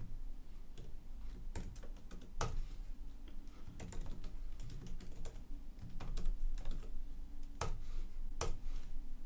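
Typing on a computer keyboard: irregular key clicks at an uneven pace, with a few noticeably louder keystrokes.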